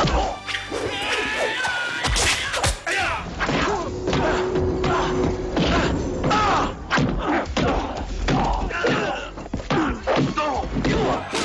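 Movie fight-scene sound effects: a rapid string of punch and kick impacts, thuds and whacks, with music underneath.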